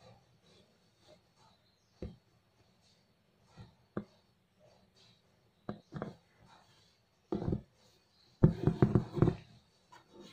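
Wooden embroidery hoop knocking and clattering as it is handled and refitted over the fabric. A few scattered knocks, then a loud run of quick rattling knocks near the end.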